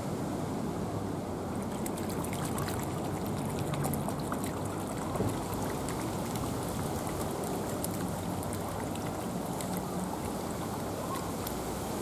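Pool water trickling and lapping over a steady low rush, with faint small splashes as a Humboldt penguin paddles at the surface.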